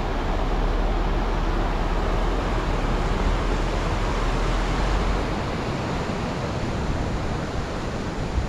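Rushing mountain creek tumbling over rocks, a steady hiss, over the low rumble of the Jeep crawling along the trail. About five seconds in, the low rumble drops away and the water's hiss carries on alone.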